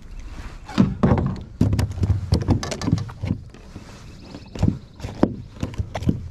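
Irregular knocks and dull thumps against a plastic kayak as a freshly landed sunfish flops and is handled for unhooking.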